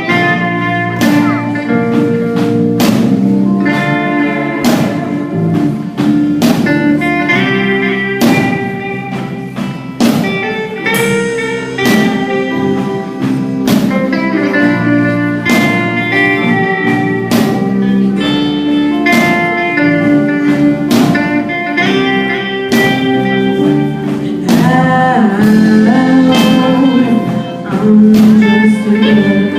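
Live band playing a song: electric guitar carrying the melody over drums that keep a steady beat.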